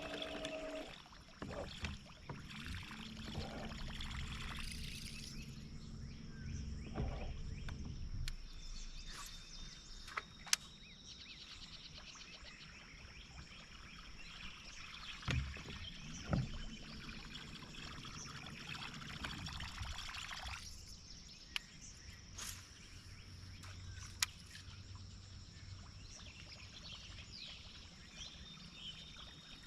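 Outdoor noise from a small fishing boat on the water, with several sharp clicks and knocks scattered through it and a faint steady high tone.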